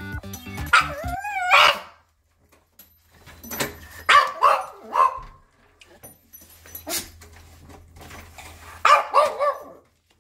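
Pekingese crying at being left behind: a high, sliding whine, then short yelping cries in two clusters, about four seconds in and near the end, typical of a dog's separation distress as its owner leaves.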